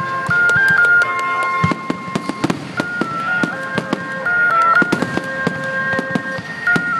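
Aerial fireworks going off, with a rapid run of sharp bangs and crackles throughout. Behind them, a simple melody plays in steady held notes.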